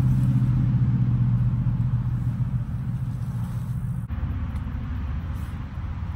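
Low, steady rumble of a motor vehicle engine, slowly fading, its tone shifting abruptly about four seconds in.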